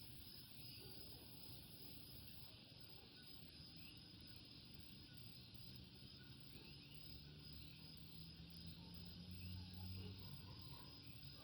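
Faint chorus of common coquí frogs, with short rising chirps scattered over a steady high trill. A low hum swells about eight to ten seconds in.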